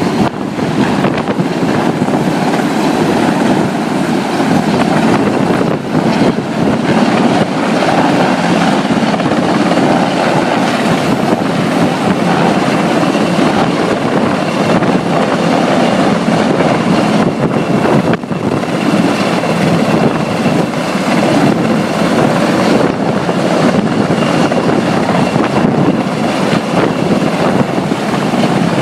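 Helicopter rotor and turbine noise, loud and steady.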